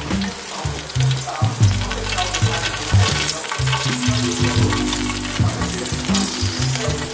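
Chicken leg quarters sizzling in their hot rendered fat in a freshly opened air fryer basket, a steady hiss full of fine crackles.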